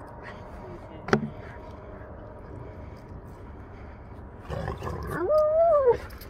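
Central Asian Shepherd dog (Alabai) giving a rough noisy burst and then a long, loud whine that rises and falls, about four and a half seconds in. A single sharp click about a second in.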